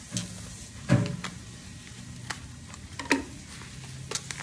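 Black plastic shipping bag being cut with scissors and pulled open by hand: several sharp snips and clicks, the loudest about a second in, with crinkling plastic, over a faint steady low hum.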